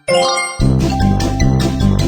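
A short bright chime, then background music with a steady beat coming in about half a second in.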